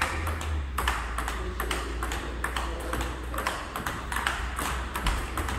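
Table tennis ball in a rally, clicking off the bats and the table in a quick run of sharp knocks.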